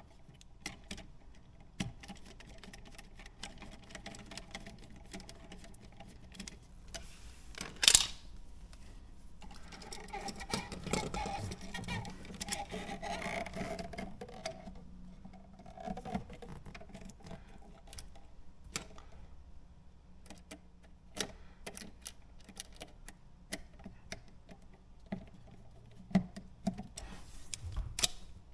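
Handwork with a screwdriver on an electrical outlet: scattered small clicks and scrapes as the cover plate and mounting screws are worked. A sharp click comes about eight seconds in, and a longer stretch of scraping follows a couple of seconds later.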